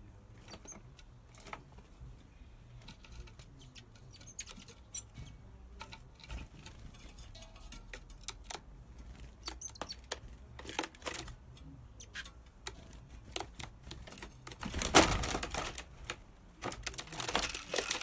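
Great tits pecking and scrabbling on a plastic-bottle bird trap, a scatter of small sharp taps and clicks on the plastic. About three-quarters of the way through comes one loud knock as the bottle trap snaps shut, followed by a dense burst of fluttering and scrabbling from the caught bird against the plastic.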